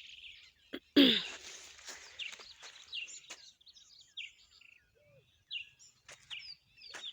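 Small birds chirping repeatedly with short, quick calls, in an outdoor farm setting. A brief loud noise about a second in is the loudest sound.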